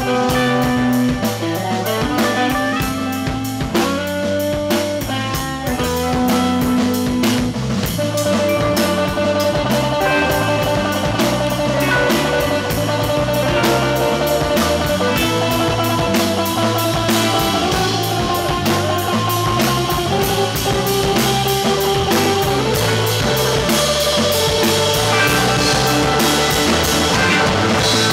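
Live rock band playing an instrumental passage: electric guitar over a drum kit with a steady beat, the sound growing fuller about eight seconds in.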